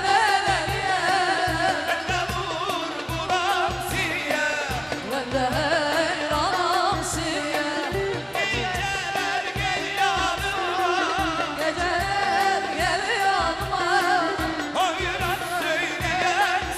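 A Turkish folk-style song: a singer's voice winding through ornamented, wavering notes over a band with a steady, regular beat.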